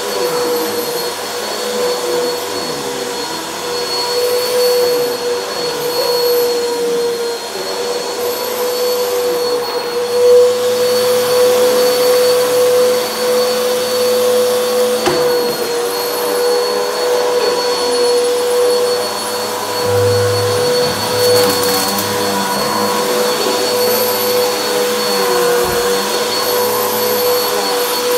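Bissell Helix Turbo upright vacuum cleaner running steadily as it is pushed over a rug, its motor giving a steady whine over the rush of the airflow and brush roll.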